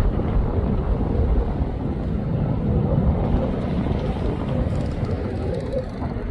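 Fighter jet flying overhead: a steady low engine rumble.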